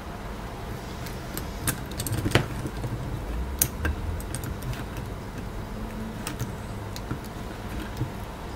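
Scattered small, sharp metallic clicks and clinks from handling a fine drill and a tiny brass ditch-light casting on a workbench, over a steady low hum; the loudest click comes a little over two seconds in.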